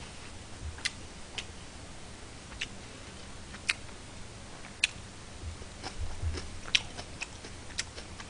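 A person chewing and eating close to a microphone, with a dozen or so sharp, irregularly spaced clicks and smacks.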